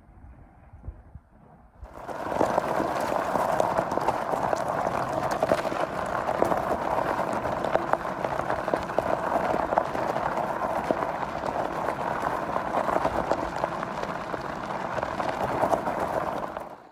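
Fat tyres of a monster scooter rolling fast over a gravel track: a steady, dense rattle of grit with many small clicks. It starts suddenly about two seconds in and cuts off just before the end.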